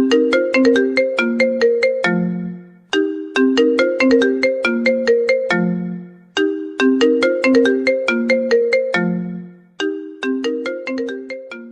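Mobile phone ringtone melody: a short tune of quick notes that die away, ending each time on a lower held note, repeated about every three and a half seconds and fading out near the end.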